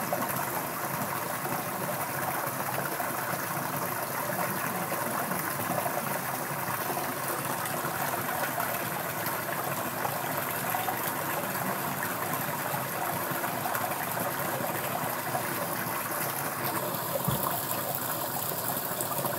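River water flowing, a steady rushing murmur.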